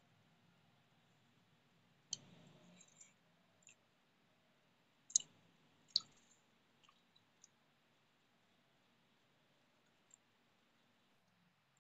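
Faint sounds of eating rice by hand from a plate: a few sharp clicks of fingers and nails touching the plate as the rice is mixed with curry, the loudest two about a second apart near the middle, with a short soft squish of rice after the first click.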